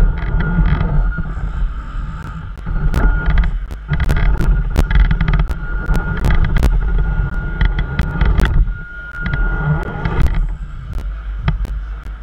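RC crawler running with a high electric-motor whine that starts and stops several times, over heavy wind buffeting on the microphone and many sharp clicks and knocks.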